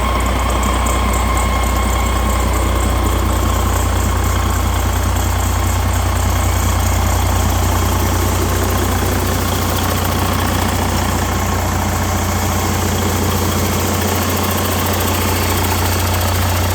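2011 Detroit DD15 14.8-litre inline-six diesel engine running steadily during a run test.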